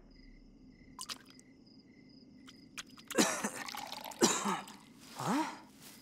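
Crickets chirping in short, evenly repeating pulses against a quiet night, with a few faint clicks. About halfway in, a character makes several short wordless groans and murmurs.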